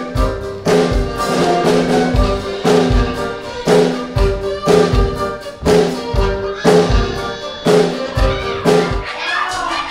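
Upbeat live band music with a heavy drum beat, about two beats a second.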